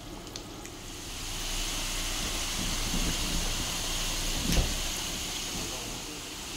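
Cartellate dough rosettes deep-frying in a pan of seed oil: a steady sizzle that sets in about a second in. One sharp knock about four and a half seconds in.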